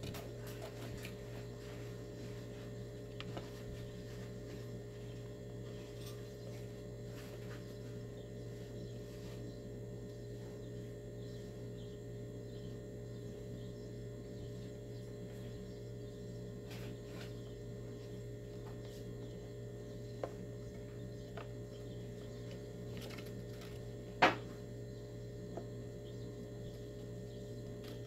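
Steady electrical hum with a few faint scattered clicks and one sharp click about 24 seconds in.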